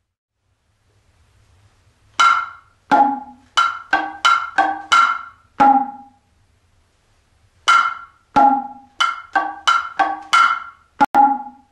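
Kotsuzumi and ōtsuzumi, Japanese hourglass hand drums, struck together in a nagauta hayashi pattern. Two phrases of crisp strokes, about eight each, are separated by a short pause. Each stroke rings briefly with a pitched tone.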